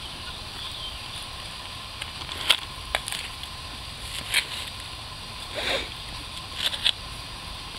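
A brush and gloved hands sweeping loose soil off a flat stone grave marker: a handful of short scrapes and swishes, scattered through the second half.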